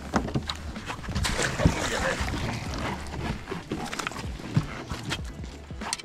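A hooked bass splashing at the surface as it is brought to the boat, loudest from about a second to three seconds in, with scattered clicks and knocks of tackle handling.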